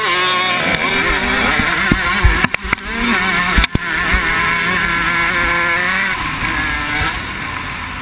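KTM 105 XC two-stroke dirt bike engine revving hard under racing load, its pitch climbing and dropping through the gears. A few sharp knocks break in about two and a half to four seconds in.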